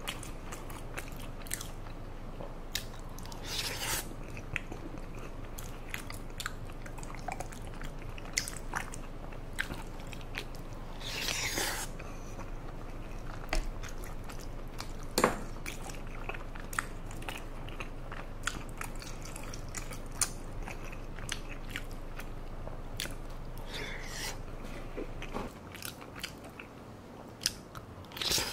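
Close-miked chewing of chewy rice cakes in thick spicy sauce: many short, sticky, wet mouth clicks and smacks, with a few longer wet sounds around 4 s, 11 s and 24 s in.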